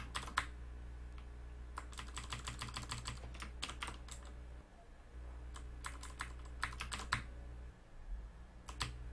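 Computer keyboard keystrokes in short bursts, three clusters of quick clicks with pauses between them, over a steady low hum.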